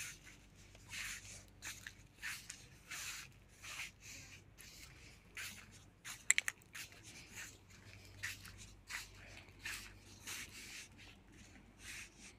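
Faint rubbing and rustling, repeated irregularly about twice a second, with a few sharp clicks about six seconds in.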